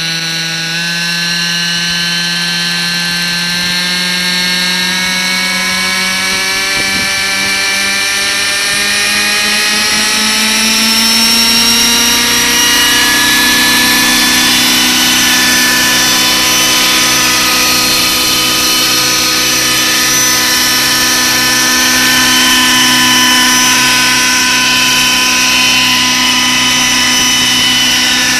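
Radio-controlled Schweizer 300 scale model helicopter spooling up: the motor's whine rises steadily in pitch for about the first dozen seconds as the rotors come up to speed, then holds steady as the helicopter lifts off and hovers.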